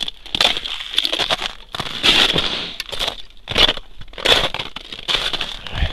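Steps crunching through dry snow on river ice, about one crunch every two-thirds of a second.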